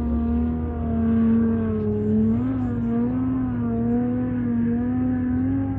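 Off-road car's engine held at high revs, its pitch steady with slight wavering and a brief rise about two and a half seconds in.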